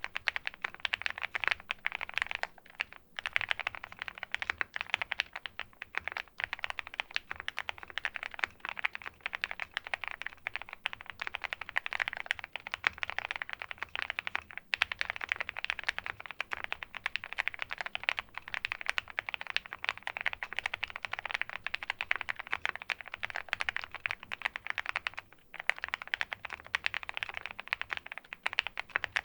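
Continuous fast typing on the OwLab x Mr. Suit gasket-mount custom mechanical keyboard, fitted with lubed 43 Studio Popu switches, a PC plate and PBT keycaps. A dense stream of keystrokes, with a few brief pauses.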